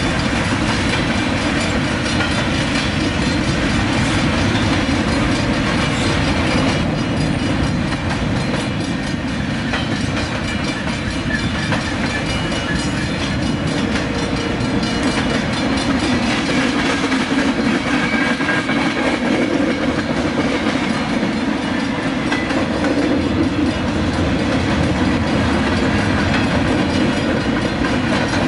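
Freight train's cars rolling steadily past, a loud, even rumble of steel wheels on the rails.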